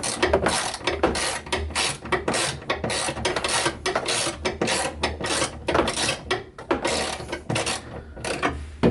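Quick, repeated ratcheting strokes, about three or four a second, each a short rasp, with brief pauses a little before the end: a hand tool being worked on the Jeep's wiring job.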